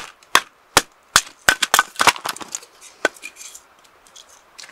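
Batoning firewood: a wooden baton knocking the spine of a knife driven into a piece of wood, sharp strikes about twice a second, then a quicker run of cracks as the wood gives, and one more knock about three seconds in.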